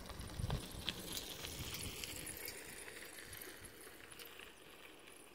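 Faint outdoor background hiss with a few sharp clicks and a soft low thump about half a second in.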